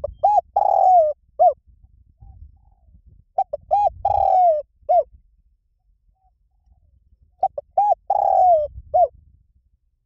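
Spotted dove cooing in three matching phrases about four seconds apart. Each phrase is a couple of quick short coos, one longer coo falling in pitch, then a single short coo.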